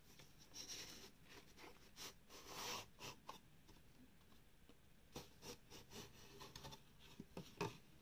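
Faint handling of a cardboard watch box: the outer paper sleeve slides off the inner box with soft rustles and a longer scrape, then a run of light taps and clicks, the sharpest one near the end.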